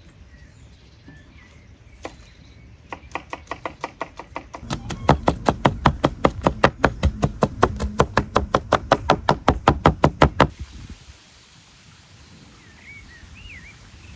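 Two cleavers chopping onion on a wooden cutting board: a rapid, even run of knocks about seven a second. It starts lighter about three seconds in, grows loud, and stops abruptly about ten seconds in.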